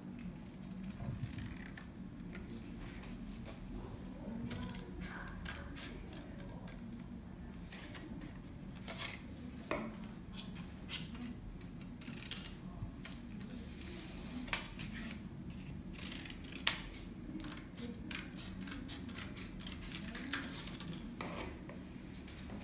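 Small blue-handled scissors snipping through a paper strip: irregular, fairly quiet snips and clicks of the blades, a couple of sharper snips near the end.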